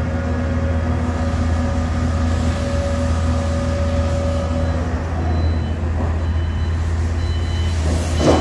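Diesel engine of a KR220C rotary drilling rig running steadily under load with a deep drone as the Kelly bar hoists the soil-filled auger out of the bore. A steady whine over the drone fades about halfway through, and a rougher, louder noise starts just before the end.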